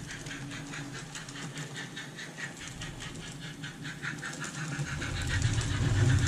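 N-scale model freight wagons rolling along the track, their wheels clicking quickly and evenly, about five times a second. A low hum grows louder near the end.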